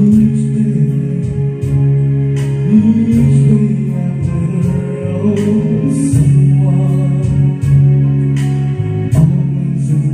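Karaoke song playing from a Karavision KP9800 karaoke player: music with guitar and a singing voice.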